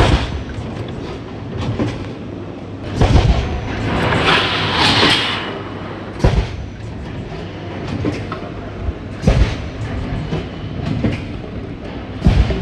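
Five-cavity servo-driven PET bottle blowing machine running: a steady machine hum broken by a heavy clunk about every three seconds as it cycles, with a hiss of compressed air about four seconds in.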